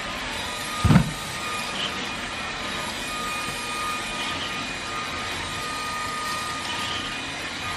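Greenote GSC45 cordless stick vacuum running steadily on carpet, a steady rush of air with a faint high motor whine, and a single low thump about a second in.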